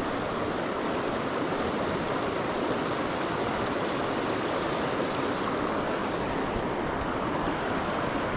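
Steady rush of a small trout creek's flowing water, running high after heavy rain.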